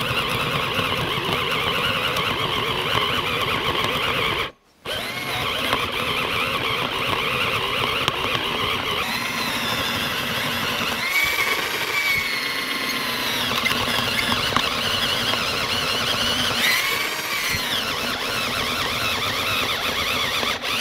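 Genesis cordless drill driving a 1-inch spade bit into a wooden block: a steady motor-and-gear whine with a precise gear sound. It stops briefly a few seconds in, then starts again, and its pitch wavers a few times as the bit bites.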